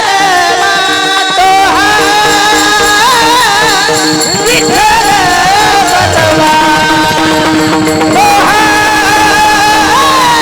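A singer holding a long, ornamented devotional melody, the pitch gliding and wavering, over a steady held drone: Marathi bhajan singing.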